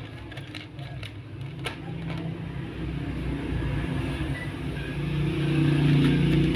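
Motor vehicle engine passing close by, a low rumble that grows louder and is loudest near the end. A few sharp clicks sound in the first two seconds.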